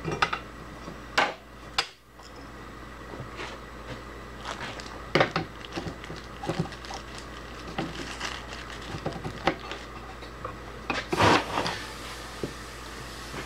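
Parts of a drill bit sharpener being handled and set down on a workbench: scattered clicks, knocks and rubbing, with a longer clatter near the end, over a steady low hum.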